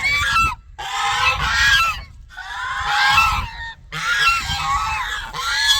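Several domestic geese honking loudly together, many calls overlapping, in about four bouts with brief pauses between. It is the agitated calling of a flock that keeps threatening to attack its keeper.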